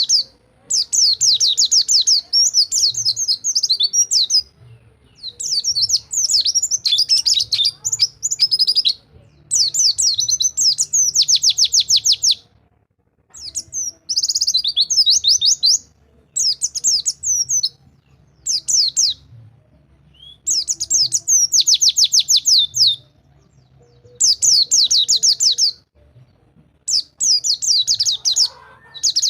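White-eye (pleci) singing in the 'rol tembak' style: bursts of fast, high rolling trills, each one to three seconds long, with short pauses between them.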